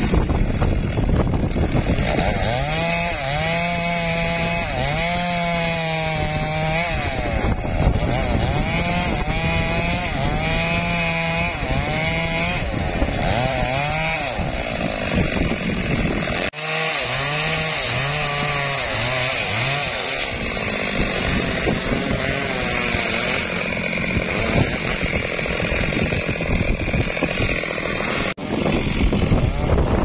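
Two-stroke chainsaw running at high revs while cutting into a felled teak log. Its pitch rises and falls as it works, and it breaks off sharply twice.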